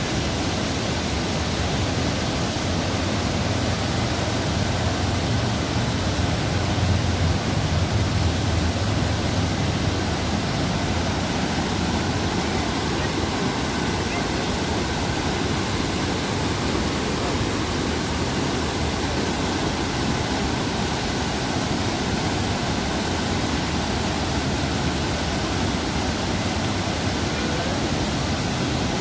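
Waterfall: water falling and splashing in a steady, even rush, with a deeper rumble swelling a little a few seconds in.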